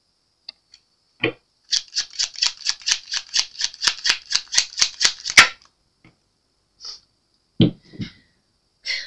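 Tarot deck being shuffled by hand: a quick, even run of card slaps, about five a second for some four seconds, ending on a louder slap. Near the end a couple of soft thumps as a card is laid down on the cloth.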